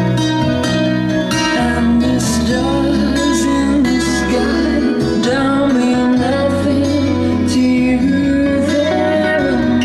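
Recorded music played through Linn Sara Isobarik loudspeakers driven by a Tandberg 3002A and Marantz 250 power amplifier, heard in the room: a melody over sustained bass notes.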